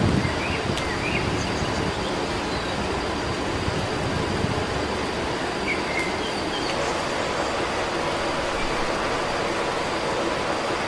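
Steady rushing outdoor background noise with a few faint bird chirps, a thin steady high tone, and one or two sharp clicks.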